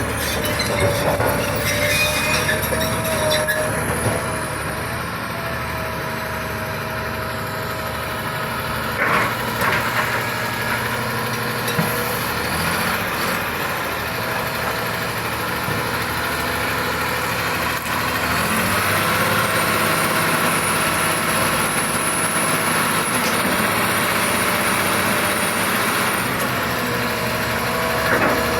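Caterpillar D6T crawler bulldozer running, its diesel engine and drivetrain giving a steady whine with a faint high whistle, with metallic squealing and a few clanks like steel tracks.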